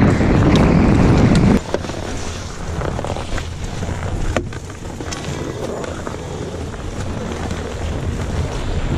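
Wind rushing over the microphone of a skier's camera on a fast downhill run. It cuts off abruptly to quieter ski-lift queue noise with a few sharp clicks from skis and poles.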